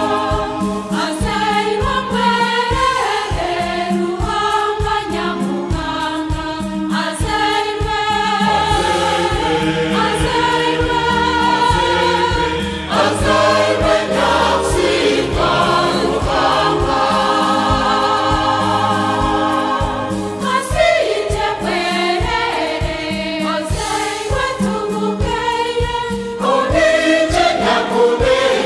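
A choir sings a Christmas hymn in Runyankole-Rukiga over instrumental backing with a steady beat.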